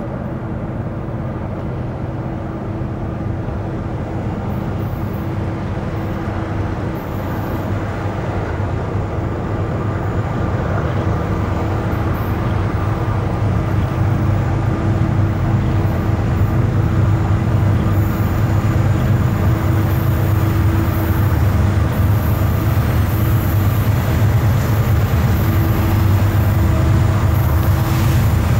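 Steady low vehicle rumble with a faint steady hum, growing gradually louder.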